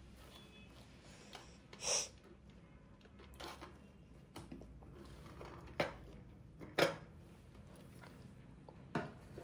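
Small gift tins and boxes being handled and set down on a desk. There is a scrape-like knock about two seconds in, then a scattering of sharp taps and light knocks.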